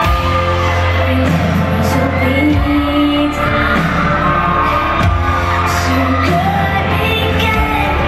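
Live pop song through an arena PA: a female lead singer sings over a band, and heavy bass and drums come in right at the start.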